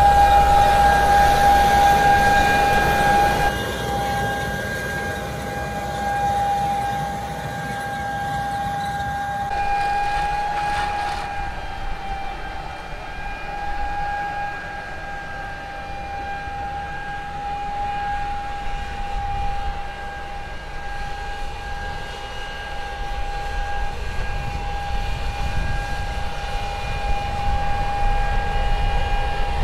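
Fendt 1050 tractor with its six-cylinder diesel pulling a John Deere N530C air seeder: the engine rumbles under load beneath a steady high-pitched whine that holds one pitch throughout.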